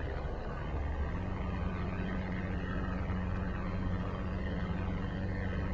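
Electric trolling motor on a bass boat running with a steady low hum.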